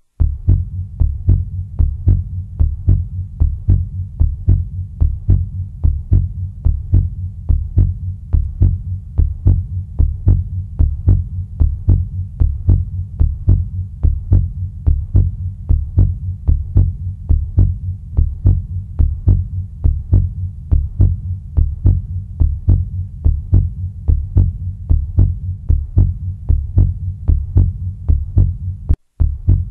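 Recorded heartbeat sound, a steady, even rhythm of deep beats. It breaks off briefly about 29 seconds in and then resumes.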